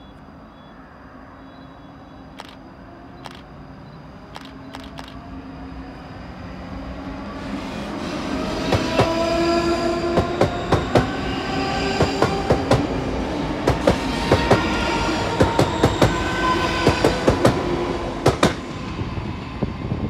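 ScotRail Class 334 electric multiple unit accelerating past, its traction motors whining in several steadily rising tones while the wheels clack rhythmically over the rail joints. The sound builds over the first eight seconds, is loudest as the carriages go by, and fades near the end.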